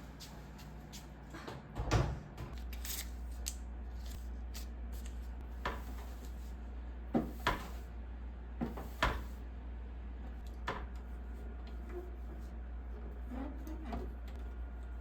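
Household things being handled, with scattered knocks and clicks like cupboard doors, drawers and items being set down. There are about half a dozen separate knocks, the loudest about two seconds in, over a steady low hum.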